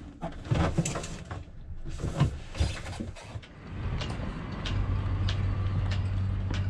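A few light knocks as a new thru-hull fitting is tapped into its hole for a dry fit. Then, from about halfway, a steady low hum with a faint tick about twice a second.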